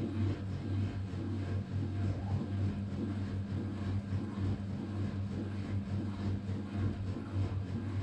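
Vintage Candy 133 front-loading washing machine tumbling a load in water: a steady motor hum with the wet laundry sloshing in the drum.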